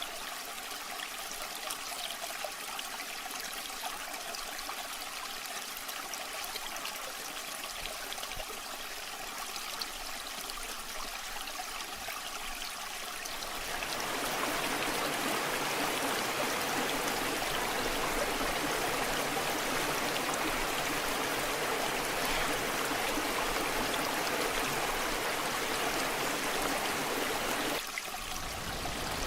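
Waterfall water flowing steadily, a light trickling rush that turns into a louder, fuller rush about halfway through, then eases again just before the end.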